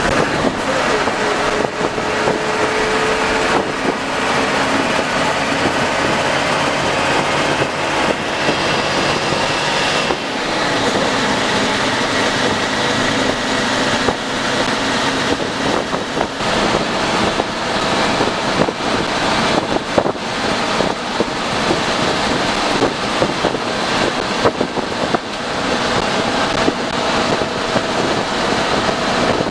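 A coach's engine and road noise heard from inside its front cabin at highway speed: a steady drone whose pitch shifts about ten seconds in, with frequent small knocks and rattles.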